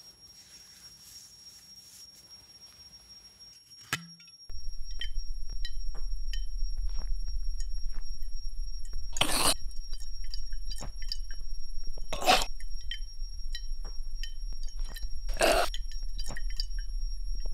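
Sound-designed drinking scene: a loud deep hum and a thin high ringing start together about four and a half seconds in, under scattered small clicks, and three loud gulps come as a man swallows from a glass bottle.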